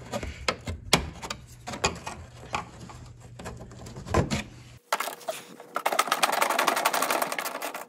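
Socket ratchet clicking rapidly and evenly as a 10 mm bolt is backed out, starting about five seconds in. Before that, scattered light clicks and taps of a screwdriver prying plastic Christmas-tree trim darts.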